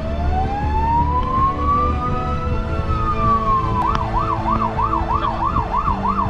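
Fire engine's electronic siren heard from inside the cab: a slow rising wail that, a little over halfway through, switches to a fast yelp of about two sweeps a second, over the truck's engine running.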